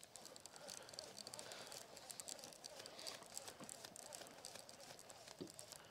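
Near silence: faint background hiss with small scattered ticks.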